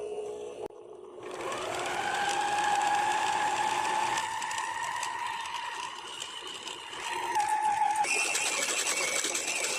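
Electric dough-kneading machine's motor starting up and kneading a flour, yeast and water dough. Its whine rises in pitch over about a second, then runs steadily, and the pitch shifts higher about eight seconds in.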